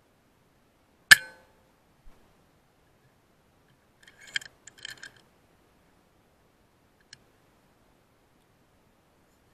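A single sharp rifle shot about a second in, with a brief metallic ring, fired at a grey squirrel on a feeder. About three seconds later comes a quick run of sharp metallic clicks, then one more click near the end.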